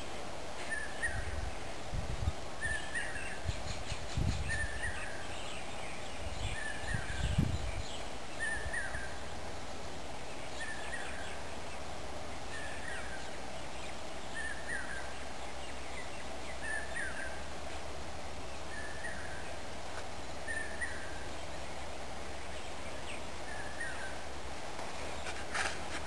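A bird repeating a short call over and over, about once every second or two, over steady outdoor background noise. A few low thumps come in the first eight seconds.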